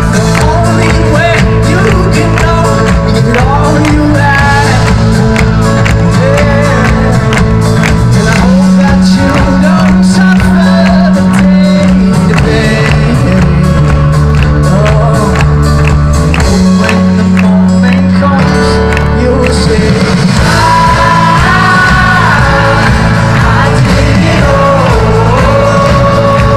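Pop-rock band playing live, loud: drums, heavy held bass notes and a sung lead vocal, the vocal melody coming through more clearly in the last few seconds.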